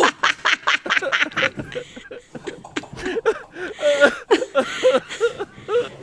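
A man laughing in short breathy bursts, breaking into higher, voiced chuckles in the second half.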